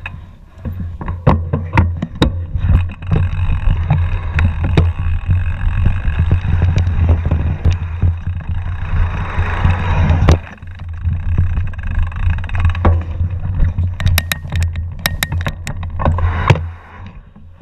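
Wind buffeting the microphone of a camera on a mountain bike rolling downhill over a bumpy grass trail, with frequent sharp knocks and rattles as the bike and mount jolt over the ground. The rumble eases briefly about ten seconds in and again near the end.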